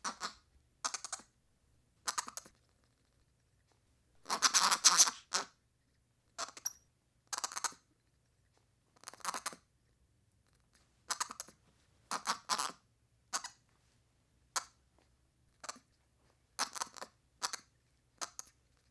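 Baby monkey chirping excitedly in short bursts with pauses between, about fifteen over the stretch; the longest and loudest burst comes about four seconds in.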